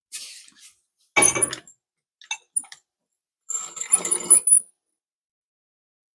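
Metal parts clanking and rattling against each other in separate handling noises. There is a loud clank about a second in, a few light clicks, and a longer rattling clatter near the middle, with short high metallic ringing after the hits.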